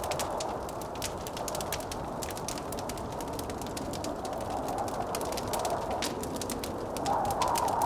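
Wood fire crackling with many small sharp pops over a steady rush of blizzard wind. The wind swells into a louder howl about seven seconds in.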